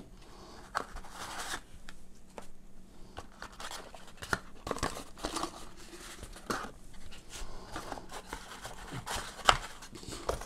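Cardboard packaging and a paper manual being handled: irregular rustling and scraping, with scattered clicks and knocks, the loudest a sharp one near the end.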